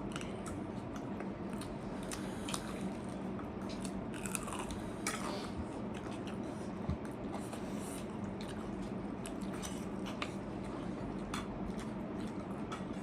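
Close-up mukbang eating sounds: people chewing and biting into spicy snacks and noodles, with many small scattered clicks over a steady low hum.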